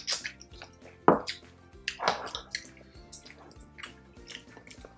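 Wet eating sounds of two people chewing braised pork with their mouths close to the microphone: a string of lip smacks and sticky clicks, the loudest about a second in and again about two seconds in. Quiet background music runs underneath.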